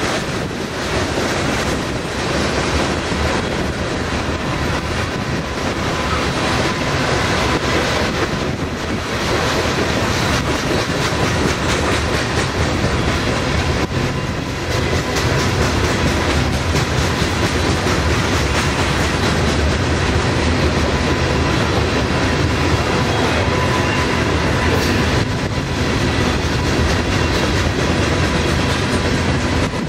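A freight train's steel-wheeled covered hopper cars rolling past, with a steady rumble and clatter of wheels on the rails and a faint steady ringing tone over it.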